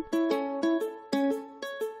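Background music: a light plucked-string tune, single notes picked a few times a second, each fading out.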